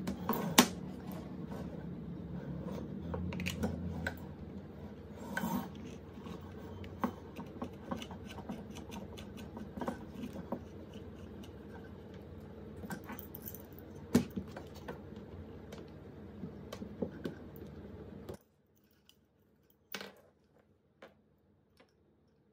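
Light metallic clicks, taps and clinks of brass-coloured metal lamp parts (base, stem tube and pull chain) being handled and screwed together, with a sharper click about half a second in and another around fourteen seconds in. A steady low hum runs underneath and stops suddenly near the end, after which only a few faint clicks remain.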